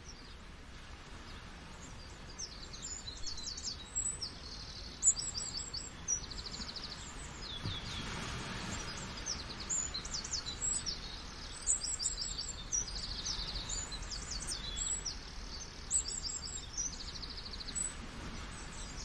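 Several small songbirds chirping and trilling, with many quick high calls and a few rapid buzzy trills, over a steady background rush of falling water.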